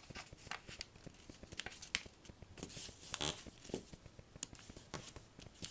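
A sheet of paper being folded and creased by hand, with scattered rustles and crackles as it is bent and pressed flat.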